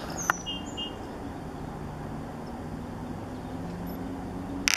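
A few short, high bird chirps in the first second over a steady low hum of distant motor traffic, with a sharp click just after the start and a louder cluster of clicks near the end.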